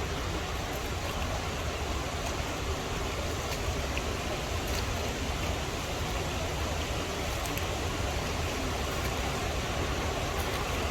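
Steady rush of river water and falling water, with a low rumble underneath.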